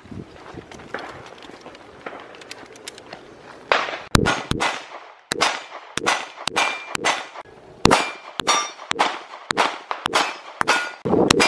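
Semi-automatic pistol shots fired in a steady string of about two a second, starting about four seconds in, with steel plate targets ringing as they are hit.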